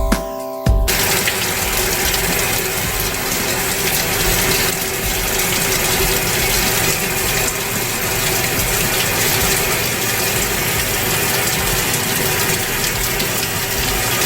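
Water rushing steadily into a Samsung washing machine as it fills, the sign that the newly replaced water inlet valve is opening. Electronic music cuts off about a second in.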